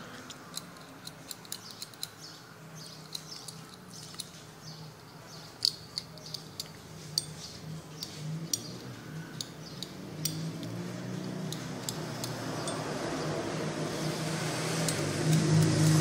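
Small metallic clicks and ticks from the blender keypad's metal contact strips being handled and scraped. Over the last few seconds, background music swells in and grows louder.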